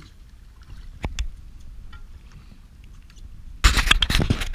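Splashing and clattering knocks near the end as a hooked grouper at the surface is gaffed beside the boat. Before that, a single knock about a second in.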